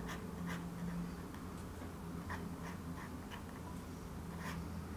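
Fountain pen nib scratching across paper in short, irregular strokes, over a faint steady low hum.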